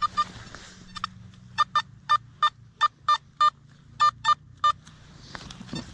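Nokta Simplex Ultra metal detector giving a string of about a dozen short, mid-pitched target beeps, singly and in quick pairs, as the coil is swept back and forth over a freshly dug hole. The signal shows the target is still down in the ground.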